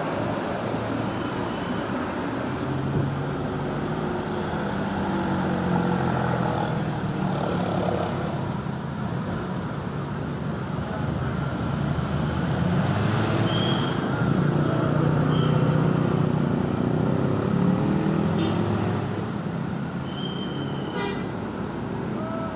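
Road traffic passing, a steady roar of engines and tyres. Two vehicles go by closer, the second the loudest, around the middle. A few brief high chirps sound over it.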